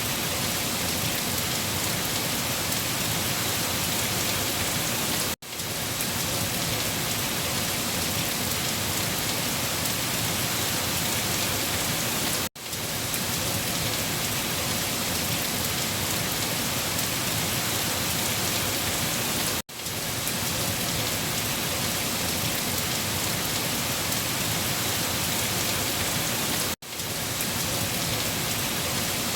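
Heavy rain falling steadily on leaves, a dense even patter. The sound cuts out for an instant about every seven seconds, four times in all.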